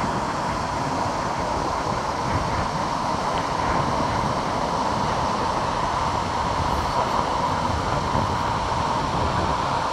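Gullfoss, a large two-tier waterfall on a glacial river, rushing with a steady, unbroken roar of falling water.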